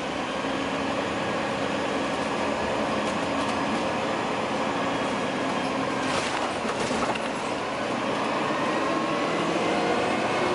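Cabin sound of a Dennis Dragon 9.9 m double-decker bus on the move: a steady engine and drivetrain drone with a whine, the whine rising slightly in pitch near the end. There is a brief clatter about six seconds in.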